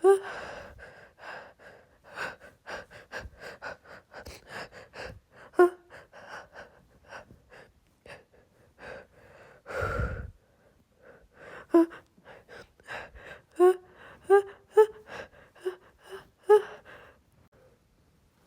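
A woman's rapid, hitching gasps as a sneeze builds, about two breaths a second, several breaking into short sharp voiced 'ah' catches. About ten seconds in comes one longer breathy burst.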